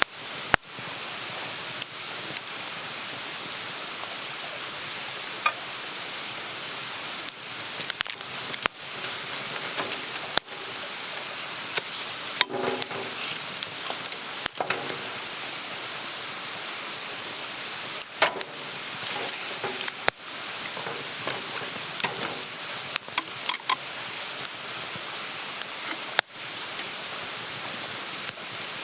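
Campfire burning with a steady hiss and frequent sharp crackles and pops of the wood.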